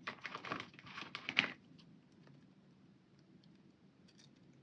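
A paper sticker being peeled off a planner page and handled in the fingers. Quiet crinkly rustling and small clicks last about a second and a half, then only a few faint ticks.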